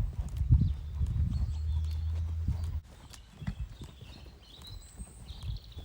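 A horse's hooves walking on the ground, an uneven series of single footfalls.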